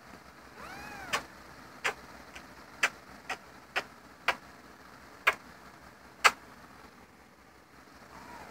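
A cat gives one short meow about a second in. Then come a string of sharp lip-smacking kisses on the cat, about nine of them, irregularly spaced over about five seconds.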